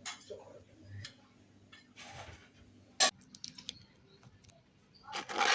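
Cooking-prep handling sounds: scattered light clicks and knocks of utensils, with a sharp click about three seconds in and a louder rustling scrape near the end.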